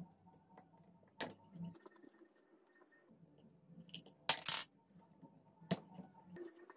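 Small metal screws and a hex key clinking on a hard tabletop and against the metal parts of a cordless nailer as it is taken apart. There are a few separate sharp clinks, the loudest cluster about four and a half seconds in.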